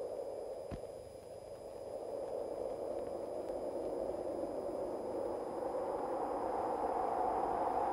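Hiss of an old radio broadcast recording, swelling slowly, with a single click just under a second in.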